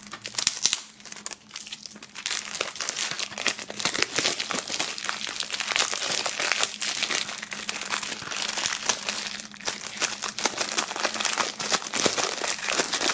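Plastic shrink-wrap being peeled and crumpled off a CD jewel case by hand: continuous crinkling and crackling.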